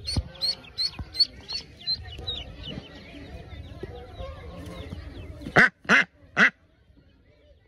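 Duckling peeping in a quick run of short high peeps, about three a second, fading out over the first few seconds. Near the end an adult duck quacks loudly three times in quick succession.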